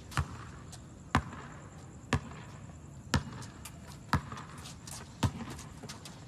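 A basketball being dribbled on a hard court: six steady bounces, about one a second.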